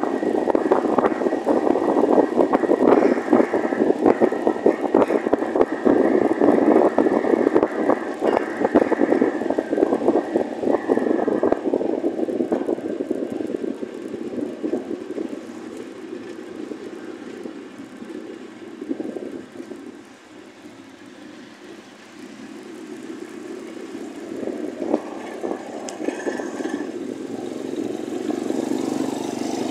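Motorcycle on the move, heard from the bike: engine noise mixed with wind rushing and buffeting over the phone's microphone. Loudest in the first twelve seconds, it eases to its quietest about twenty seconds in, then builds again near the end.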